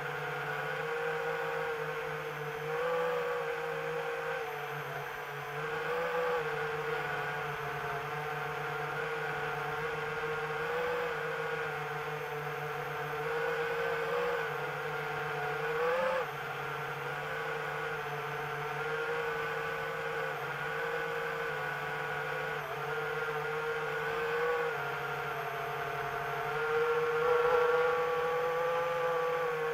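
Electric motors of a small multirotor drone whirring in flight, with brief rises in pitch every few seconds as the throttle is pushed, and a longer, louder rise near the end.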